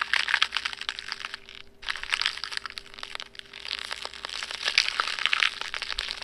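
Crackling, crunching sound effect in dense bursts, with a brief gap a little under two seconds in, standing for stone-like flesh crumbling and falling apart.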